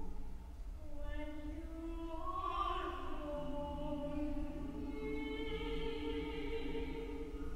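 Mixed choir singing a slow passage of long, sustained notes, the pitch moving smoothly from chord to chord.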